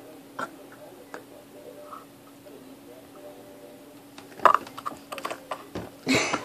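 Faint steady hum, then from about four seconds in a cluster of small clicks, taps and rustles from handling close to the microphone, ending in a brief louder rustle.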